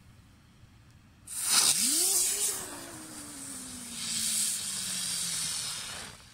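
A Comet Geisterstunde ground spinner (a spraying spinner firework) catches about a second in and burns with a loud spray hiss. A low tone with it climbs quickly, then sinks slowly. The hiss swells again near the four-second mark, as the colour changes, and stops just before the end.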